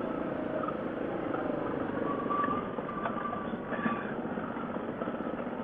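Yamaha 700 ATV's single-cylinder engine running steadily at low trail speed while riding over a leaf-covered dirt trail.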